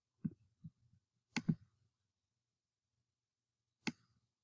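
A handful of short, sharp computer mouse clicks: two in the first second, a close pair about a second and a half in, and one near the end, with dead silence between.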